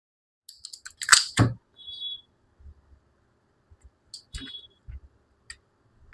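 Small clicks and taps of hand tools and plastic phone parts being handled while a Realme C55 smartphone is taken apart, with a loud pair of knocks about a second in and two short high chirps.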